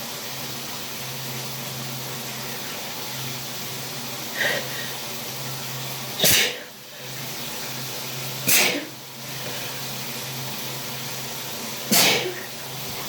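A person sneezing in a sneezing fit brought on by a cold: a smaller sneeze, then three loud ones a couple of seconds apart, over the steady hiss of running shower water.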